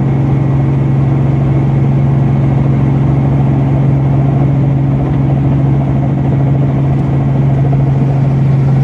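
Robinson R44 Raven I helicopter running steadily, its piston engine and rotors making a constant, even drone.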